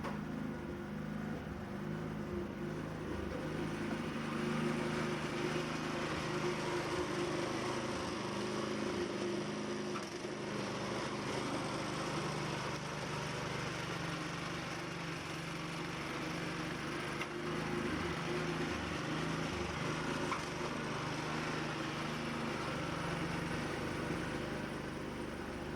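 An engine running steadily, with a low hum and a hiss of noise above it.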